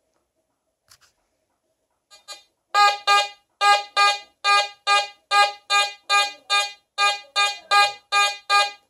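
Nokta Fors Core metal detector sounding its target tone, a pitched beep repeated about two to three times a second as a barber dime is passed back and forth over the coil; the silver coin reads a target ID of 85. The beeps start faintly about two seconds in and then come steadily.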